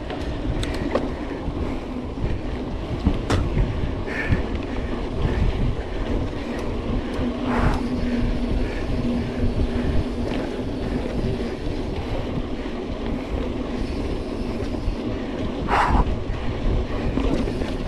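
Mountain bike ridden fast over a rough dirt trail: a continuous rumbling rattle of tyres and bike over the ground, with wind on the microphone and a few sharp knocks from bumps.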